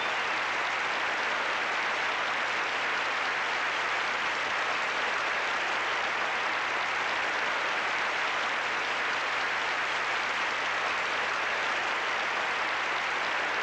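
Studio audience applauding, a steady, unbroken clapping that holds at an even level throughout.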